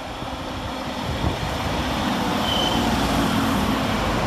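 Class 195 diesel multiple unit approaching through the station, its engine and wheel noise growing louder over the first two seconds and then holding steady, with a brief high squeal about two and a half seconds in.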